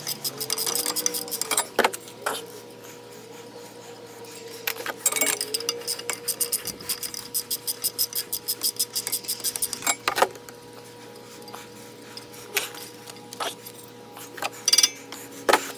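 Hand ratchet and socket clicking in short runs while the valve cover bolts on a small engine are worked loose, with metal-on-metal clinks and taps; the steadiest run, about three or four clicks a second, comes midway through.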